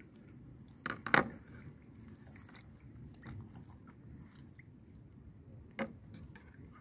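Knife cutting and pulling apart raw yellowfin tuna flesh on a table: wet slicing and tearing sounds, with a sharp double knock about a second in and another near the end.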